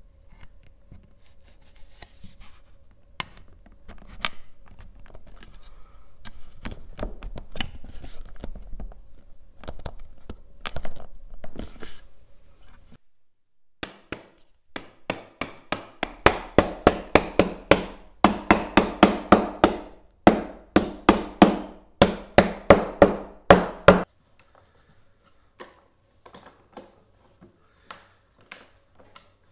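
Mallet knocking glued wooden cabinet parts down onto their dowels: a fast run of loud, sharp wooden knocks, about three a second in four short groups. Before it come quieter sliding and clicking as the wood is fitted together.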